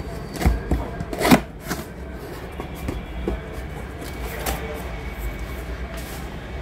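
Cardboard box being opened by hand: a few scrapes and rustles of the lid and flaps, the loudest about a second in, over a steady low hum.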